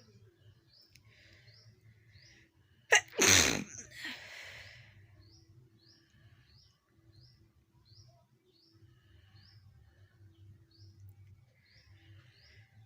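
A person sneezes once about three seconds in: a sharp catch, then a loud burst and a breathy tail. Faint short high chirps repeat about twice a second throughout.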